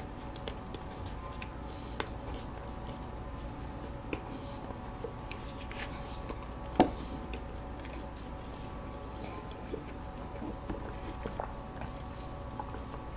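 Close-miked chewing of soft walnut cake (hodu-gwaja), with small wet mouth clicks and one louder click about seven seconds in, over a faint steady hum.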